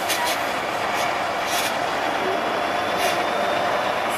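Tatra 813 eight-wheel trial truck's diesel engine running steadily under load, with short bursts of hiss about a second and a half in and again about three seconds in.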